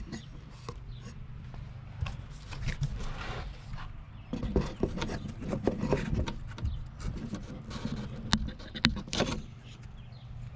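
Hands handling the parts of a new pressure washer during assembly: irregular clicks, knocks and rustling, busiest in the second half with two sharp loud clicks near the end, over a steady low hum.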